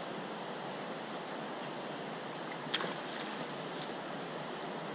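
Shallow river water running over rocks, a steady even rush, with one sharp click a little past the middle.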